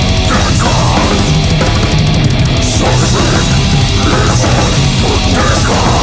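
Death metal recording: heavily distorted electric guitars over fast, dense drumming, loud and unbroken throughout.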